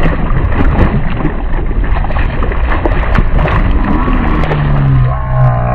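Striped bass thrashing and splashing at the surface as it is grabbed by hand over the side, with repeated sharp splashes over a steady low rumble; a low droning tone comes in near the end.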